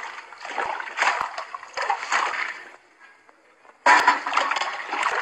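Water splashing and sloshing. It dies away to near silence around the middle, then starts again suddenly and loudly about four seconds in.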